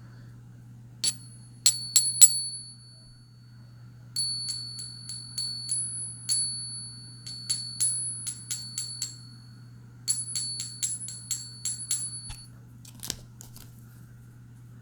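Morgan silver dollars being tapped one after another, each tap giving a high, clear bell-like ring that lingers: the ring of 90% silver coins. The taps come in three runs, several to a run, with one duller click that does not ring near the end.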